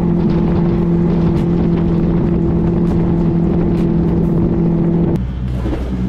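Yamaha outboard motor on a jon boat under way: a steady, unchanging drone over rushing noise. It ends abruptly about five seconds in.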